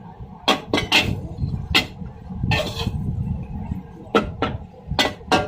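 Irregular sharp clanks and knocks of cooking utensils, about eight in all, over a low steady rumble.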